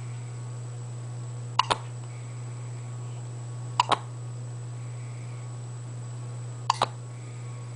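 Hiccups: three of them, each a quick pair of sharp clicks, two to three seconds apart, over a steady low hum.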